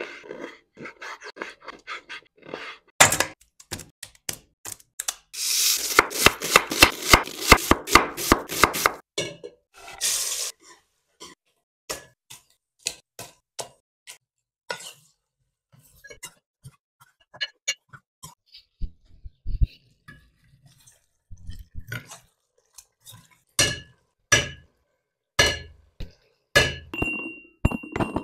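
Kitchen handling sounds from preparing raw mutton, with no voice: a knife cutting meat on a wooden board, then a longer stretch of wet, crackly mixing, then scattered clinks and knocks of metal. Near the end a metal mortar rings with a high, steady tone.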